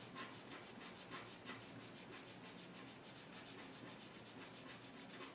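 Fine-tip fineliner pen scratching on paper in quick repeated strokes, several a second, as fur is hatched in with long strokes. The sound is faint.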